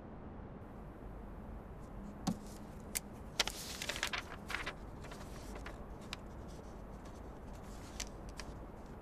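A sheet of paper rustling as it is picked up and handled, about three seconds in, with a few light taps and clicks before and after, over faint room hiss.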